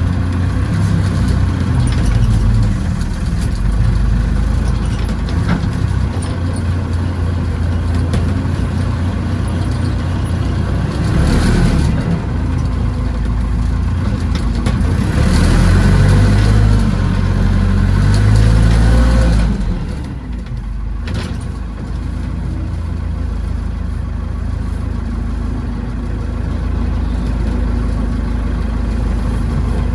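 Diesel engine of a Massey Ferguson tractor with a backhoe, running steadily under work load. It rises louder through the middle, then eases off about twenty seconds in.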